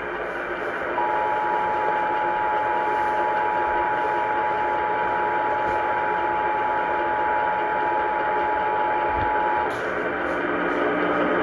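Emergency Alert System attention signal: two steady tones sounding together for about nine seconds, starting about a second in and cutting off sharply near the end. It is heard through the hiss of a radio receiver and announces an emergency alert.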